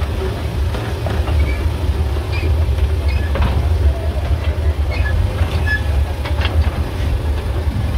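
Old locomotive-hauled tourist train running along the track, heard from an open carriage: a steady low rumble with scattered clicks from the wheels on the rails and a few brief squeaks about five seconds in.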